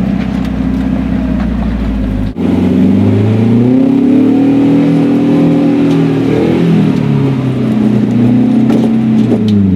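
Engine of an off-road 4x4 working under load on a steep rock climb, its pitch rising and falling with the throttle. The sound changes abruptly a couple of seconds in.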